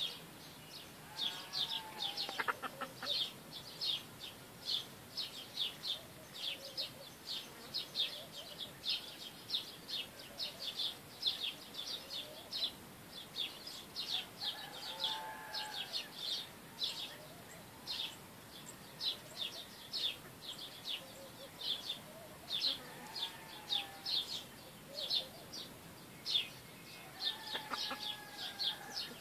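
Village chickens foraging and giving a few short clucking calls now and then, under a near-constant run of quick, high bird chirps, two or three a second.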